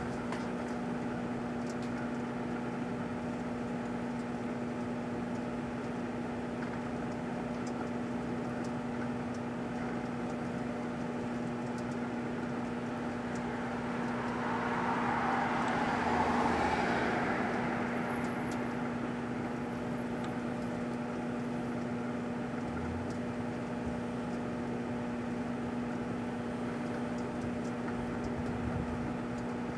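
Proctor-Silex microwave oven running with a steady electrical hum. About 14 seconds in, a rushing hiss swells, peaks a couple of seconds later, and fades by about 18 seconds.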